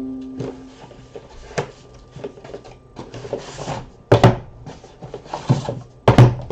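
Cardboard trading-card boxes and packs being handled and opened: rubbing and scraping of cardboard, with a couple of sharp knocks as the boxes are set down or tapped.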